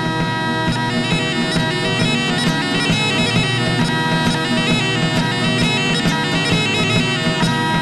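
Music: a melody of quickly changing notes over a steady held drone.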